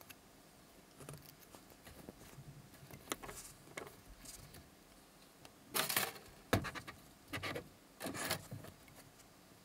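Faint handling noise as a synthetic wine cork with a steel wire threaded through it is turned in the fingers: short rubs and scrapes, a louder cluster a little past halfway, a sharp click just after it, and another louder scrape near the end.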